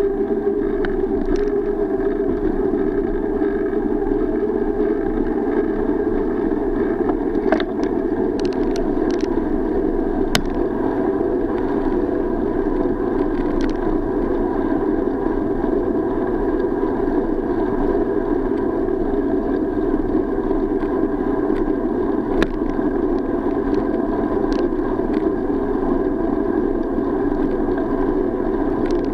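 Steady muffled rumble of a bicycle rolling over brick paving, as picked up by an SJ4000 action camera riding along with it. Scattered short clicks and knocks come from bumps in the paving.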